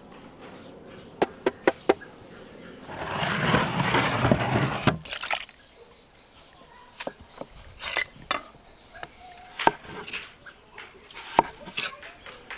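Large chef's knife chopping peeled potatoes on a wooden cutting board: irregular sharp chops about a second apart through the second half. Earlier there are a few quick clicks and a loud rustling stretch of about two seconds.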